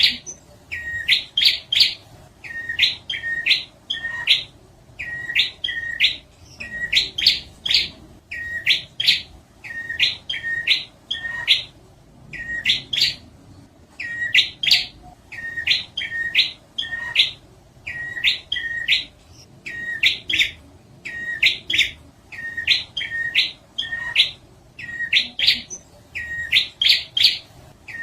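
Prinia (prenjak) song played as a bird-catching lure: sharp chirping notes in quick groups of two to four, one group about every second.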